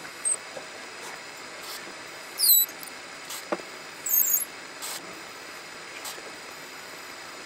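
Metal lathe running while a 1/8-inch reamer in the tailstock chuck cuts into a small brass valve guide, with two brief high-pitched squeals from the cut, about two and a half and four seconds in.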